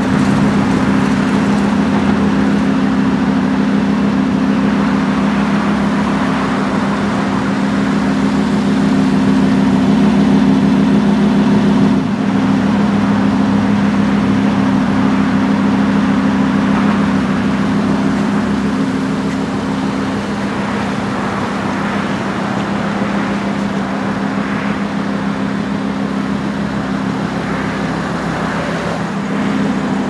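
Steady mechanical drone from a parked 2015 Lamborghini Huracán, holding two steady low tones with little change and easing slightly in loudness about two-thirds of the way through.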